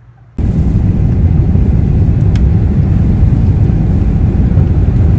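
Jet airliner heard from inside the cabin: a loud, steady, deep roar that starts abruptly about half a second in.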